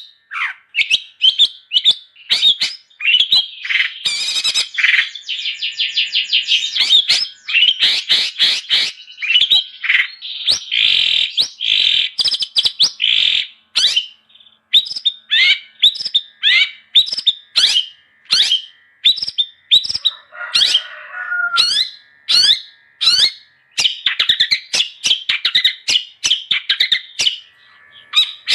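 Long-tailed shrike (cendet) singing continuously: a rapid, varied chatter of sharp high chirps, quick trills and buzzy notes with hardly a pause, with one rougher, lower call about two-thirds of the way through.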